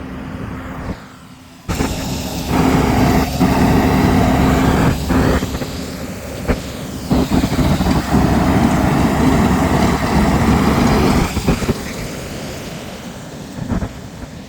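Heavy equipment running a Harley rake through an old gravel driveway, a loud, dense machine and gravel noise that starts abruptly about two seconds in, with a few short dips, and eases near the end.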